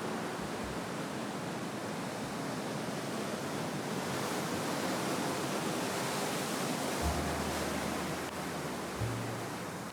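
Sea waves washing and breaking on the shore, a steady rush of surf that swells a little midway.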